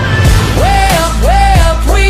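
Background music: a song with a heavy bass line and a melody in short phrases that slide up and down between notes.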